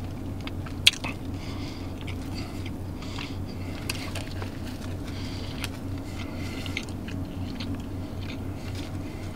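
Close-up biting and chewing of a bacon, egg and cheese sandwich on a soft roll: scattered small mouth clicks and soft wet chewing noises, with one sharp click about a second in. Under it runs a steady low hum.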